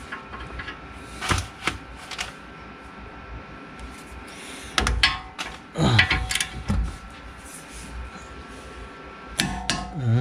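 Sharp metallic clicks of a click-type torque wrench on a brake caliper bracket bolt, the click that signals the set 100 foot-pounds has been reached. A few single clicks come first, then a louder cluster of clicks and clatter in the middle, and more clicks near the end.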